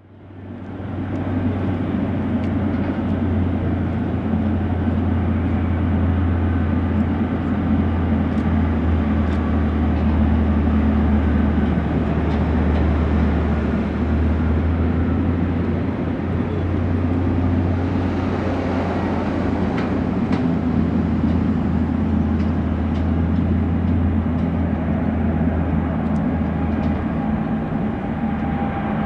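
Jet engines of a Boeing 777-300ER, its GE90 turbofans, running steadily at taxi power: a steady low hum with a rushing noise, fading in over the first second.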